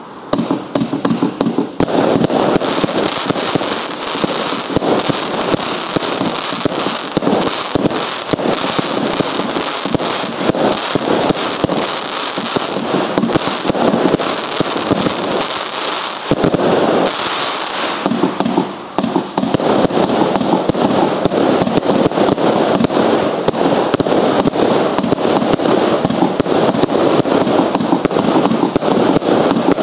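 Stienen Future Aurora consumer firework cake firing a rapid, dense barrage of shots and bursts. It starts suddenly right at the outset and keeps up without a break, apart from a brief lull a little past halfway.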